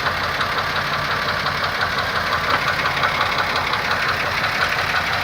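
2002 Pontiac Grand Am GT's 3.4-litre V6 running steadily with a fast, even knocking tap. The cause is unknown to the owner.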